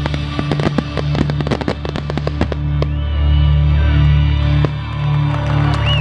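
Firework display finale: rapid bangs and crackling of aerial shells bursting, thinning out after about two and a half seconds, over a loud musical soundtrack of long held low notes. High whistles from the crowd come in near the end as the bursts die away.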